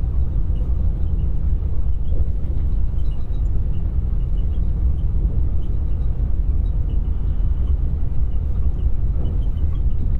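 Steady low rumble of an intercity coach's engine and tyres at road speed, heard inside the passenger cabin from a seat at the very back.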